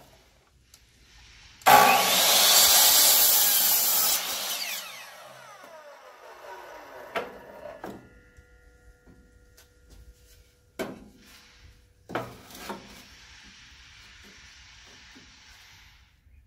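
Miter saw spinning up and its blade cutting through a wooden board for about two and a half seconds, making a 45-degree miter cut, then the blade winding down with a falling whine. A few sharp knocks follow.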